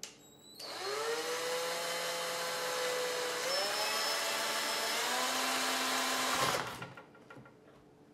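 Cordless drill motor whining for about six seconds. It spins up, then speeds up in two steps and stops, while it bores a pilot hole into a synthetic rifle stock.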